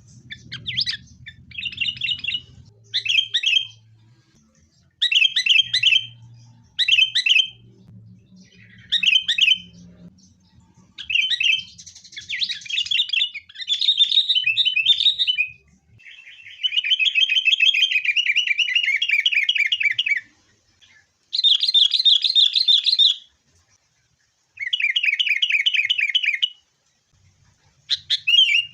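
Sooty-headed bulbuls calling in agitated, fighting bouts: a run of short chirped phrases about once a second, then three long, fast rattling trills of two to three seconds each.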